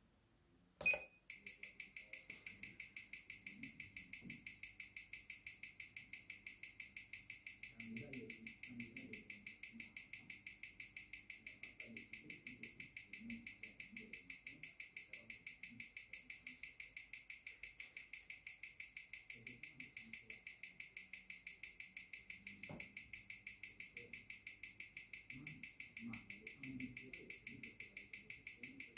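A single button click, then the ticking of a Seiko 6R15 automatic movement, amplified through a timegrapher's speaker: a fast, perfectly even tick at 21,600 beats per hour, six ticks a second. The movement is running at a low amplitude of about 190°, which the owner puts down to bad factory lubrication.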